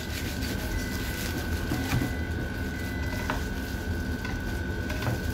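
A knife cuts through a foil-wrapped roll and taps the cutting board a few times, with sharp clicks about two, three, four and five seconds in. Under it runs a steady low mechanical hum with a thin high whine, from kitchen machinery.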